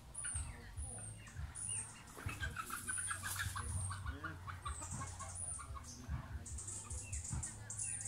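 Chickens clucking, with a quick run of clucks in the middle. A high, thin, falling chirp repeats about every half second throughout.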